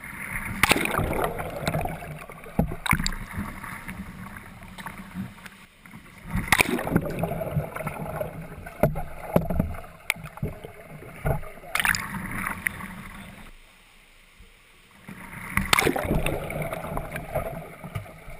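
Pool water splashing and sloshing as a kayak is capsized and rolled back upright, heard up close from the kayak's deck. The splashing comes in several loud surges a few seconds apart, with quieter stretches between.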